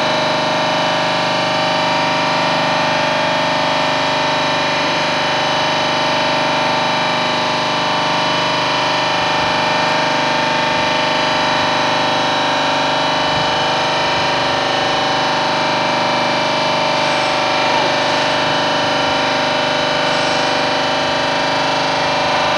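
Machinery running steadily: a loud, even hum and whine made of many steady tones that do not change in pitch.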